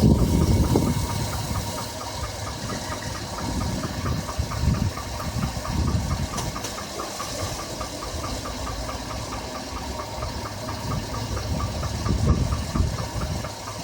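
2007 Chevrolet Avalanche V8 idling with a fast, even ticking knock. After new lifters, this is the noise traced to the number 5 piston: piston slap or knock. The low engine sound swells louder near the start and again about twelve seconds in.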